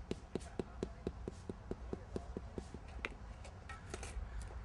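A hand tool tapping, about four light taps a second for two and a half seconds, then a few scattered knocks, while the concrete border of a paver driveway is being set.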